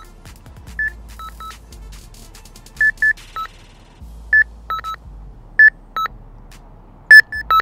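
Fox RX+ Micron electronic carp bite alarm sounding a string of short beeps at two alternating pitches, irregularly spaced, while its volume is stepped through its settings. The beeps vary from soft to very loud, the loudest coming near the end.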